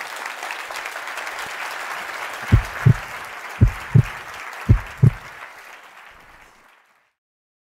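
Audience applauding, dying away near the end. In the middle, three low double thumps in a heartbeat-like rhythm, louder than the applause, from the closing logo sound.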